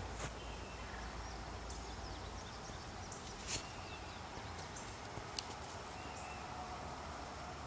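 Steady outdoor background noise with faint, short high chirps and a few light knocks.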